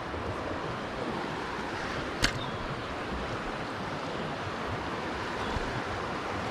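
Creek water rushing steadily over rocks in a fast, rough current. A single sharp click comes about two seconds in.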